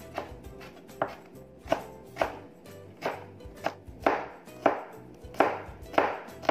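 Chef's knife chopping ginger and garlic on a wooden cutting board: about a dozen steady strokes, roughly one every half second, each a sharp knock of the blade on the board.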